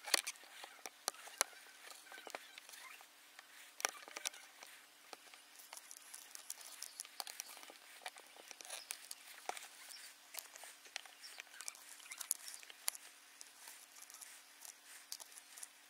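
Handling noise from a camera and night-vision scope being moved and adjusted: faint, irregular clicks and small scrapes over a steady low hum.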